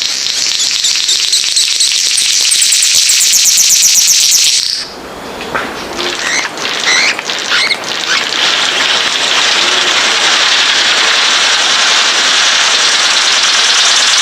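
Birds calling: a fast, high rattling series of rapidly repeated notes that stops abruptly about five seconds in, followed by a steady high hiss with scattered short chirps.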